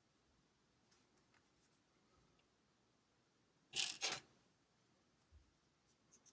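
LEGO bricks being handled during assembly: one short clatter of small plastic parts about four seconds in, with a few faint clicks elsewhere over quiet room tone.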